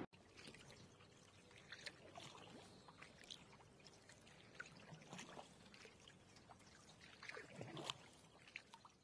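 Near silence: a faint trickle of water with scattered small ticks and clicks.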